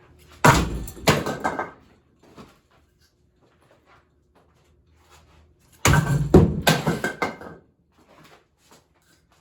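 A wood block thrown into a running Hampton Bay Littleton ceiling fan, batted by the spinning blades in a quick clatter of hard knocks about half a second in. A second clatter of knocks follows about six seconds in.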